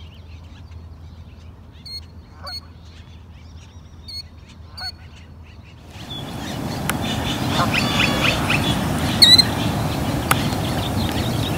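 Killdeer giving short, high calls, a handful spaced a second or two apart. About halfway through, a loud, even rushing noise, like wind or handling on the microphone, starts and covers the rest, with a few more calls heard over it.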